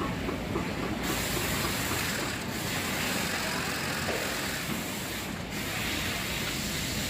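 Steady machine noise with a loud even hiss over a low rumble, starting about a second in and briefly dipping twice, from textile machinery with threads and bobbins running.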